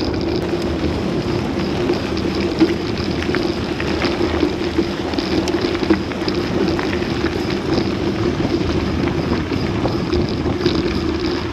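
Steady wind rush on a bike-mounted camera's microphone while a mountain bike rolls along a dirt and gravel road, with tyre rumble and small scattered ticks and rattles.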